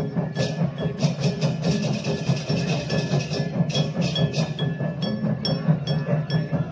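Balinese okokan, large wooden cowbells worn by a troupe of parade performers, clattering together in a dense wooden rattle. Drums and cengceng cymbals beat along in rhythm. The rattle is thickest around the middle, then settles into regular strokes a few times a second.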